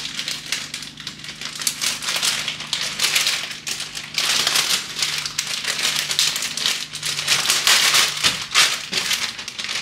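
Plastic bag crinkling and rattling irregularly as it is handled, with a faint steady low hum underneath.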